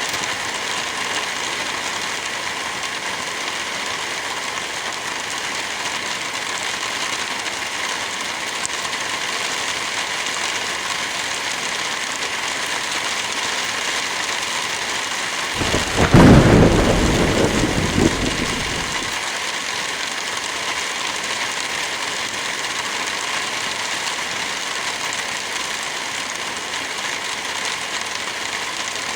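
Heavy rain falling steadily, with one thunderclap about halfway through that rumbles and fades over a few seconds.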